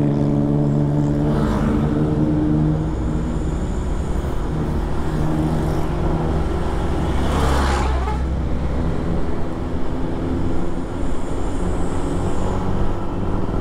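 Vehicle engine running steadily at road speed, with tyre and road rumble. About seven to eight seconds in, a loud rushing swell rises and falls away, like another vehicle passing close.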